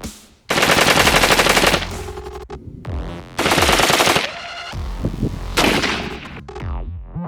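Three bursts of rapid automatic gunfire, each about a second long, mixed with electronic music that has deep falling bass sweeps between the bursts.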